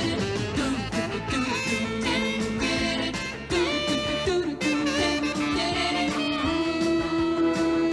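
Background music: an instrumental passage of an upbeat cartoon chase song, between its sung verses.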